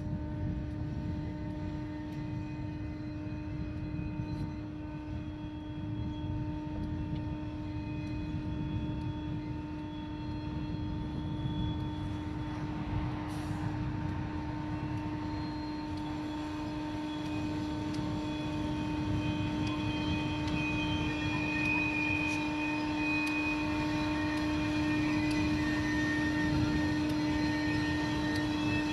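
Railway snow blower running steadily, a constant humming tone over a low rumble, slowly growing louder toward the end.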